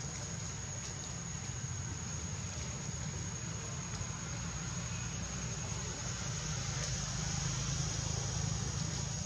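Steady high-pitched drone of insects, one thin unbroken note, over a continuous low rumble that swells slightly near the end.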